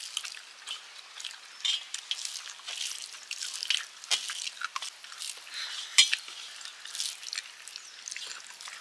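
Steel plates and bowls clinking and scraping at a meal eaten by hand, a scatter of small irregular clicks with one sharper clink about six seconds in.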